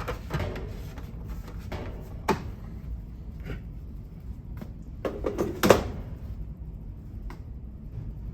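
A series of knocks and clicks from a coffee carafe and brew basket being handled at a commercial coffee brewer. There are about half a dozen of them, spaced irregularly, with the loudest cluster a little before six seconds in.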